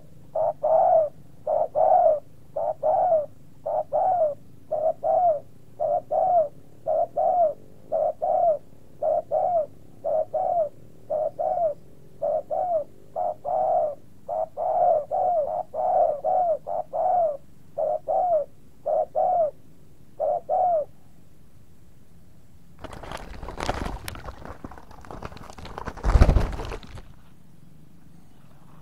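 Dove cooing: a long, regular run of short coos, about two a second, which stops about 21 seconds in. A few seconds later comes a burst of rustling noise with a heavy bump.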